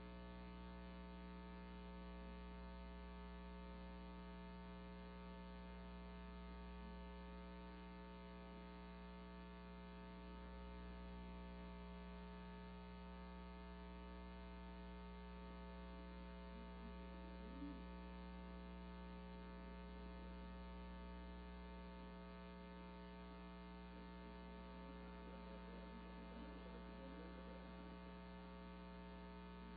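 Faint steady electrical mains hum with many even overtones, otherwise near silence, with one small click about two-thirds of the way through.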